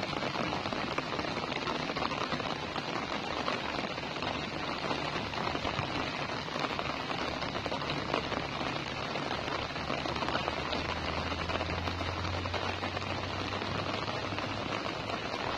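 Steady light rain pattering on grass and the ditch water, an even hiss made of many small drops.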